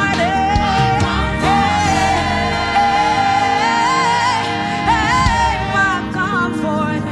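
Live gospel praise-and-worship song: a woman lead singer with backing singers over instrumental accompaniment, the lead voice holding long notes.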